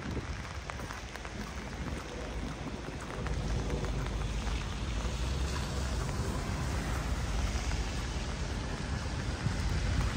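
Steady rain falling, with a fine patter of drops hitting surfaces. A low rumble comes up about three seconds in and continues under the rain.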